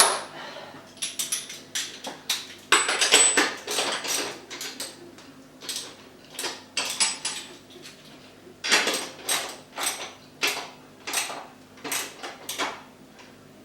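Irregular metallic clinks and clanks of a wrench working on a BMX bike's front wheel axle nuts, tightening the wheel into the forks. The clanks come in two busy clusters, one early and one in the second half.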